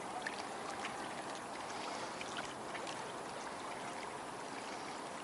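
Wind-driven ripples lapping and trickling against the pontoon and bank: a steady, soft water wash with small faint splashes.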